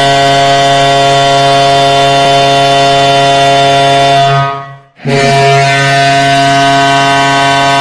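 Tampa Bay Lightning hockey arena goal horn sounding long, steady blasts: one stops about four and a half seconds in, and after a short break a second long blast starts about five seconds in.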